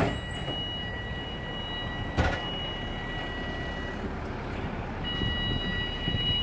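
Hovercraft engines and lift fans running steadily while the craft stands on its pad, with a low rumble and a steady high tone that drops out about four seconds in and comes back a second later. A single sharp knock about two seconds in.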